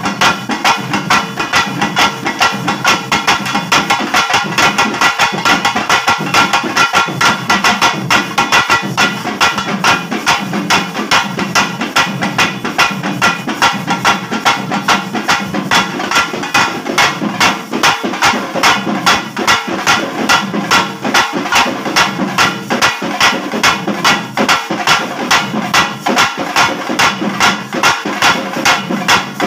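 Pambai, a Tamil folk pair of tied cylindrical drums, beaten with sticks in a fast, steady rhythm, with a round metal-faced drum struck with a stick alongside.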